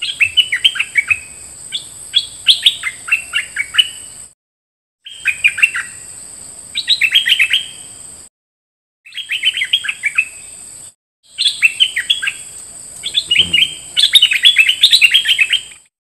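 Stripe-throated bulbul singing quick runs of short falling notes, in four separate bursts broken by brief dead-silent gaps. A steady high buzz sits behind each burst, and there is a single low thump about 13 seconds in.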